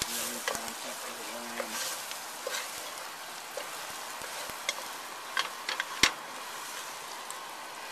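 Diced onions sizzling as they sauté in a stainless steel pot, with a wooden spoon stirring and scraping. The spoon knocks against the pot several times, the loudest knock about six seconds in.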